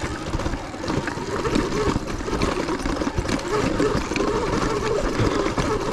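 Sur-Ron electric dirt bike's motor whining under heavy load on a steep climb, its pitch wavering up and down, with scattered clicks and crunches from the bike working over rock.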